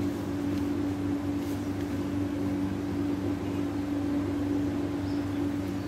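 Steady low mechanical hum holding one constant pitch.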